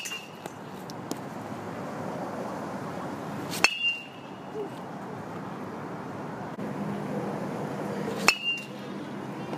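Metal baseball bat striking pitched balls three times, about four seconds apart, each hit a sharp ping with a brief high ring.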